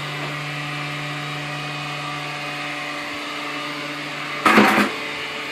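Homemade mushroom-room humidifier running: a 3-inch bilge fan blowing into a 55-gallon barrel holding a 9-disc pond fogger. It gives a steady motor hum over a hiss. A brief louder sound comes about four and a half seconds in.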